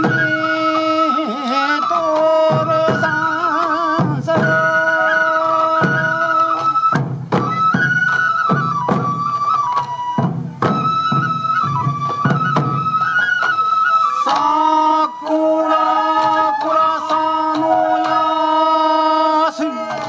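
Shinobue bamboo flutes playing a melody together over steady strikes of the dancers' taiko drums: traditional Sansa odori festival music. The flute line shifts to a new phrase about two thirds of the way through.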